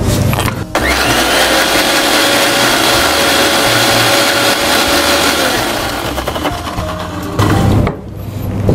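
Electric mixer grinder with a steel jar running, grinding cucumber, onion and mint with a little water into a paste. The motor starts with a rising whine about a second in, runs steadily, and winds down about six seconds in.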